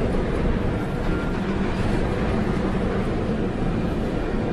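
Steady storm noise of wind and heavy seas around a cargo ship, with a deep rumble underneath and no distinct crashes.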